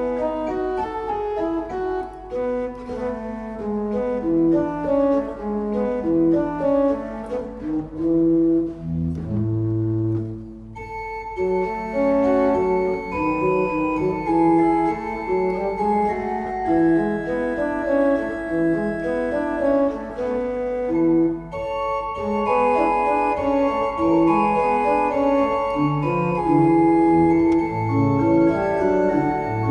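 Church pipe organ playing a closing voluntary after the blessing, with sustained chords and moving lines. About ten seconds in the music thins to a low held pedal note, then resumes with a brighter registration.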